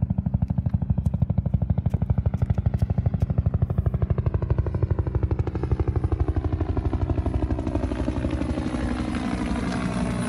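Helicopter flying low overhead, its rotor blades beating in a fast, even rhythm. A whine beneath falls slowly in pitch as it passes, and the beat smooths out near the end.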